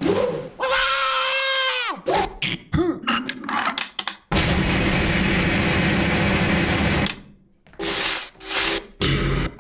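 Industrial-style fight sound effects: a high whine that holds and then falls away, a quick run of sharp knocks and clicks, then a steady loud machine-like grinding for about three seconds that cuts off suddenly, with a few short bursts near the end.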